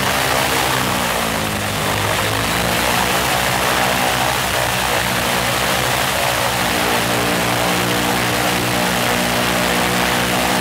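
Ilyushin Il-14T's Shvetsov ASh-82T fourteen-cylinder radial engine running on the ground with its propeller turning, a steady, loud engine note. The pitch dips and recovers once, about a second in, and rises slightly again a little past the middle.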